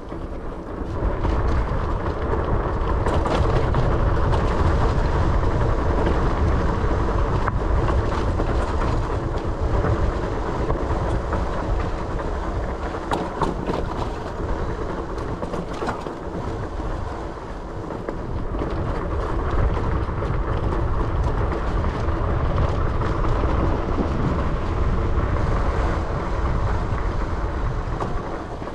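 Continuous rumble and rattle of a Dirwin Pioneer fat-tire electric bike, on 26×4.0 tires, riding over a rough dirt trail, with frequent small knocks and clatters from the bike.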